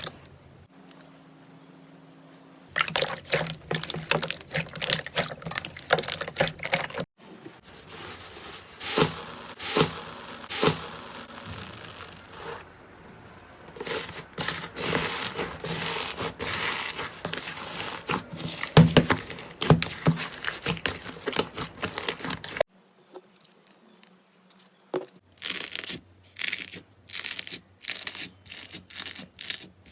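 Slime being squeezed, stretched and pressed by hand, giving off dense runs of sharp crackling and popping clicks. The sound comes in several separate stretches with short quiet gaps between them.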